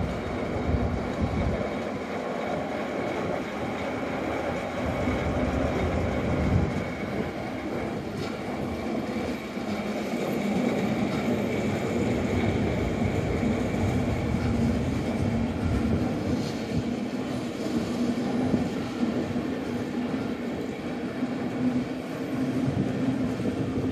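Locomotive-hauled Snälltåget passenger train pulling out, its coaches rolling past with a steady rumble and hum and light wheel clatter over the rail joints.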